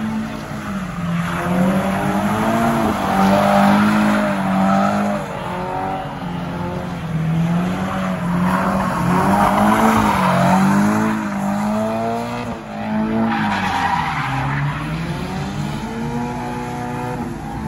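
A car doing donuts: its engine revs up and down again and again while the spinning tyres squeal and skid. The sound is loudest about three to four seconds in and again around ten seconds.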